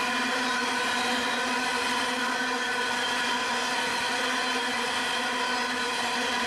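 Coal train's hopper wagons rolling past, with a loud, steady, unchanging pitched whine from the train.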